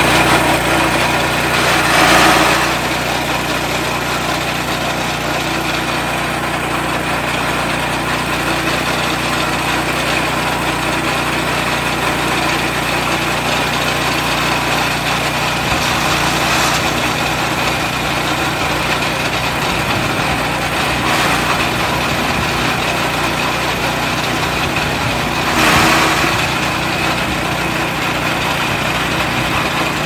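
Small petrol engine of a grass chopper (chaff cutter) running steadily, turning the machine's cutting blades; the sound swells briefly about two seconds in and again near the end.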